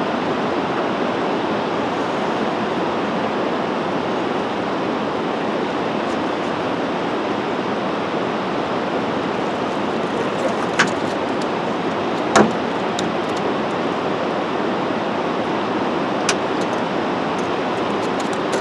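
Steady rushing noise of wind and water on a boat, with a few sharp knocks and splashes as a trout is landed in a landing net. The loudest knock comes about twelve seconds in.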